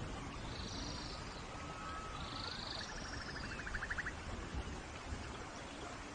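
Steady rain falling in a forest, with birds calling over it: several short high calls and a quick buzzy trill about halfway through.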